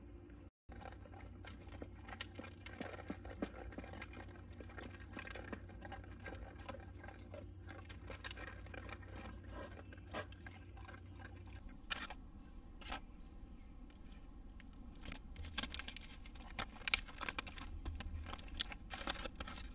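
A dog's metal collar tags jingling faintly, with scattered small clinks.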